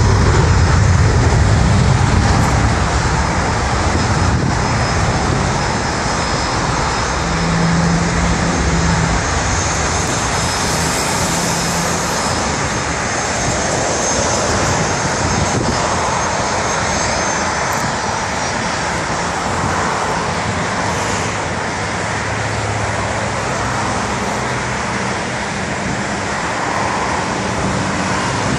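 Jet airliner engines running at the airport, a steady rush with a faint high whine that swells around the middle, mixed with road traffic passing close by on the highway.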